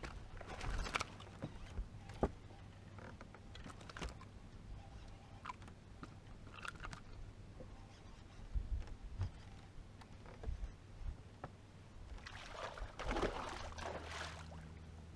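Scattered knocks and clicks of fishing gear and fish being handled in a boat, over a low steady hum, with a louder rush of noise about thirteen seconds in.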